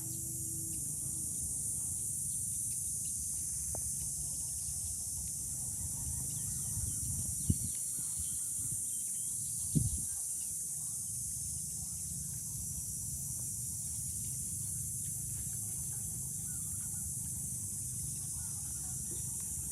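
Rural outdoor ambience: a steady high hiss with a low rumble underneath and faint bird chirps, broken by two sharp knocks about seven and ten seconds in.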